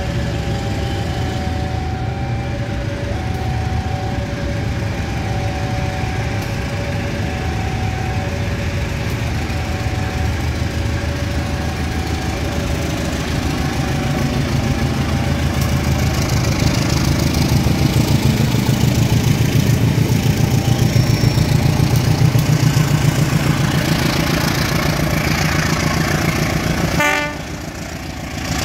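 Railway sounds around a standing commuter electric train: a two-tone beep repeating about every second and a half over the first half, under a low rumble. The rumble then grows louder with a fast pulse, and drops off abruptly near the end with a brief burst of tones.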